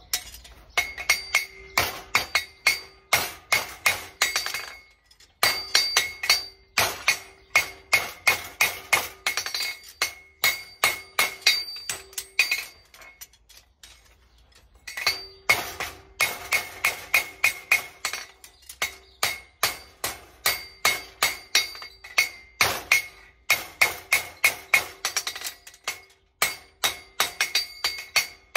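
Farrier's hammer striking a horseshoe on an anvil to shape it: rapid ringing blows, about two to three a second, with a brief pause about five seconds in and a longer pause around thirteen to fifteen seconds in.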